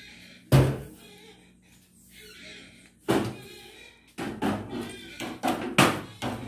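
Broom sweeping a ceramic-tiled floor, its head striking the tiles with sharp knocks: a loud one about half a second in, another around three seconds, then a quick run of strokes near the end.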